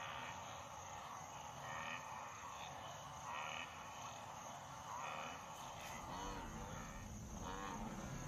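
A wildebeest herd grunting and calling, with repeated insect chirps in the background.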